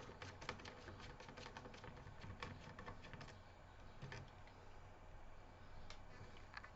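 Faint, irregular small clicks and ticks of a screwdriver working a small screw out of a laptop motherboard.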